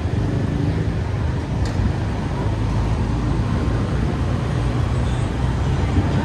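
Steady low rumble of a scooter being ridden slowly through street traffic, its engine and road noise heard from the handlebars.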